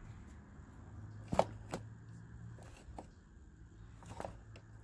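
A few light, sharp clicks and taps from hand tools being handled at the open valve train, the loudest about a second and a half in, over a faint steady low hum.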